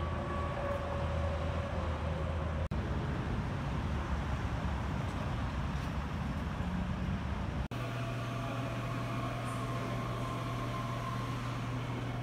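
Steady outdoor vehicle noise of cars and idling trucks at a highway fuel station. After a cut about two-thirds of the way in, it gives way to a steady low hum in a large indoor hall.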